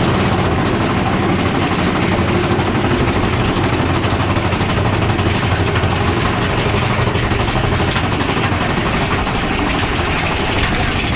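Big Thunder Mountain Railroad mine-train roller coaster running on its track, heard from inside a moving car: a loud, steady rumble and rattle of the train.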